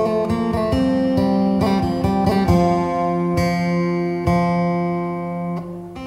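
Instrumental dance music on a plucked string instrument: a picked melody over held low notes.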